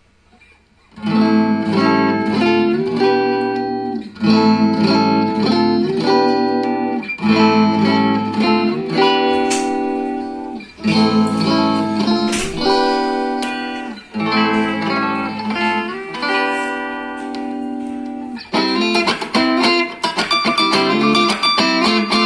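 Manuel Raymond MRE3 guitar played through a Cort MX15R amp: picked chords in repeated phrases, with a faster run of notes near the end.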